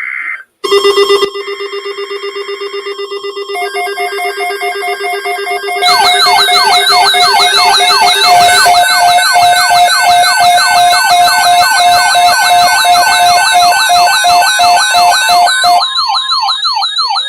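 Loud layered electronic siren and alarm tones. A steady buzzing tone starts just under a second in and more steady tones join it. About six seconds in, many fast rising-and-falling yelp sweeps pile on top, and near the end these give way to slower wavering sweeps.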